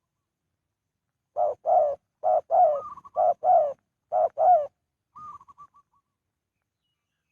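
A dove cooing: four loud paired coos, then a fainter quick run of higher notes.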